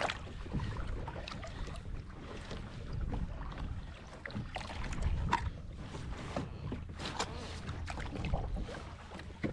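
Water splashing and lapping against a kayak hull, with wind rumbling on the microphone and a few brief splashes and knocks.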